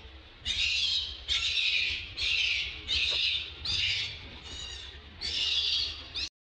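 Baby macaque screaming in distress while an adult macaque grips it: about seven shrill screams in a row, each under a second, the last one cut short.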